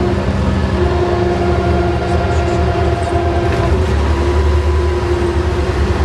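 Volvo Olympian double-decker bus with a Cummins engine and ZF gearbox running under way, heard from inside the passenger saloon: a steady low engine drone with a steady whine over it.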